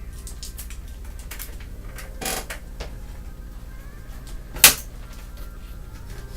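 Plastic laptop casing being handled and pried apart on a desk: scattered light clicks, a short scraping rustle a little over two seconds in, and one sharp plastic snap about two-thirds of the way through.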